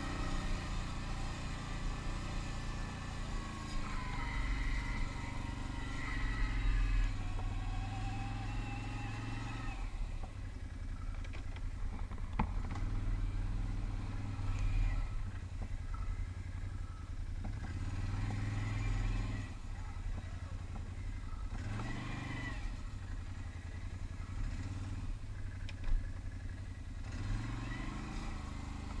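Can-Am ATV engine running while riding a dirt trail, the revs rising and falling as the throttle is opened and eased off every few seconds, over a steady low rumble. A single sharp knock comes near the end.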